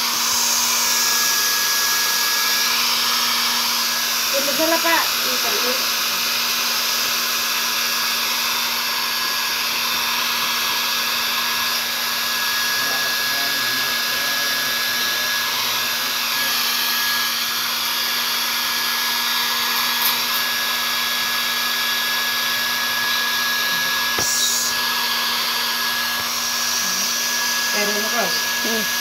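Hair dryer running steadily, an even blowing rush with a constant low hum and a thin high whine.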